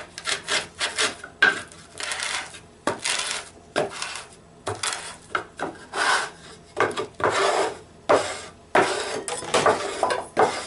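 A small plywood block rubbed back and forth under hand pressure over rice grains on a plywood board: repeated rough scraping strokes, about two a second. The wood is grinding the husks off long-grain rice to dehull it by hand.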